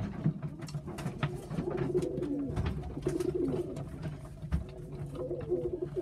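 Several tippler pigeons cooing over one another in low, wavering calls, with many scattered sharp clicks and taps.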